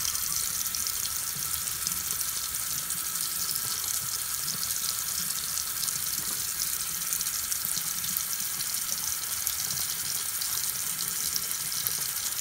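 Bathroom sink faucet running steadily, a stream of water splashing into the basin.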